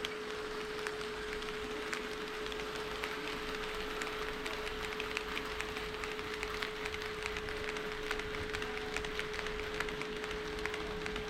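HO scale model train running on KATO Unitrack: many light, irregular ticks of the wheels over the rail joints, over a steady unchanging hum.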